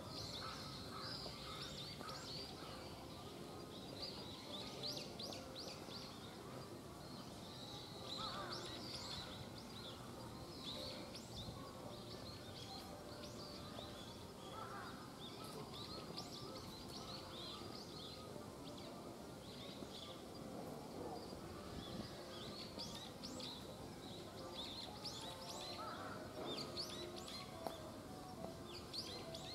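Small birds chirping again and again, with short high chirps scattered throughout, over faint outdoor background noise.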